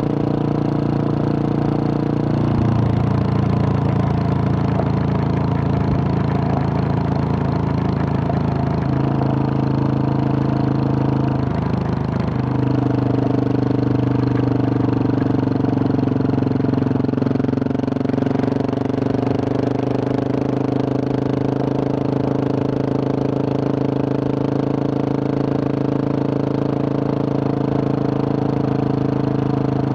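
2021 Husqvarna 701 Supermoto's single-cylinder four-stroke engine, with a Wings exhaust, running under way at a steady cruise. Its note steps in pitch a few times and dips briefly about twelve seconds in before settling again.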